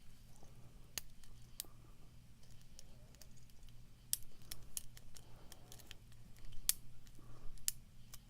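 Lock pick working the pins of an Abus 83 AL45 padlock: scattered small metallic clicks and light scrapes at an irregular pace, over a faint steady low hum.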